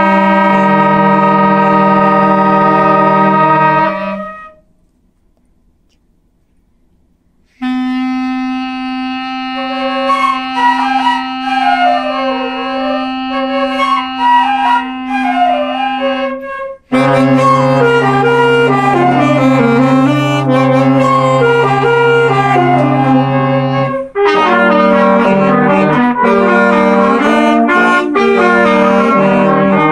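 A children's school wind band of alto saxophones, trumpet and trombone playing. A held chord cuts off about four seconds in and after a pause of about three seconds the band comes back with a sustained low note under a slow melody. It grows louder and fuller partway through, then after a brief break the notes move more quickly.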